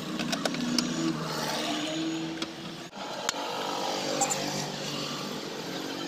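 A motor vehicle engine running steadily, with a few short sharp clicks over it.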